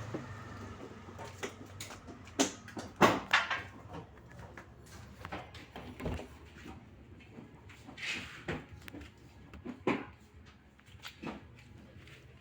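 Irregular clicks and knocks as the front bumper of a car is worked loose, with the loudest run of knocks about three seconds in and a sharp one near ten seconds.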